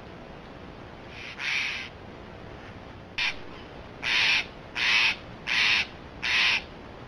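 A bird calling with harsh, caw-like calls: one about a second and a half in, a short one near three seconds, then four evenly spaced calls in quick succession.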